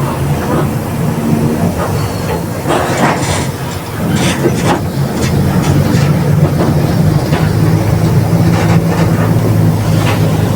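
Mercedes-Benz OF 1721 BlueTec 5 bus under way: a steady low drone from the diesel engine and driveline, with the differential growling and the body rattling and knocking now and then.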